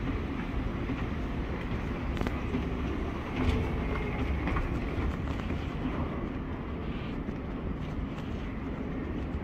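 Steady low rumble of a vehicle in motion, with scattered light clicks and rattles and a brief louder jolt about three and a half seconds in.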